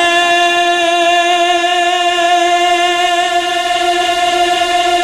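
A man's voice holding one long sung note, steady in pitch, in a chanted recitation of a Punjabi Sufi verse.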